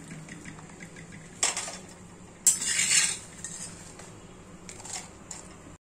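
A steel spoon scrapes and clinks against a stainless steel kadai and a mixer-grinder jar as fried onions, garlic and dried chillies are scooped across. The loudest clatter comes about two and a half seconds in.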